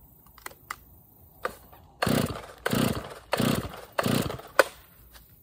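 Stihl MS311 chainsaw being pull-started: four quick pulls on the recoil starter, each a short cranking rasp, with the engine not catching. A sharp click follows the last pull.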